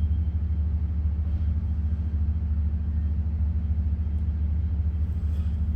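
Steady, unchanging low rumbling hum of an unexplained noise, which sounded at first like trains on the track.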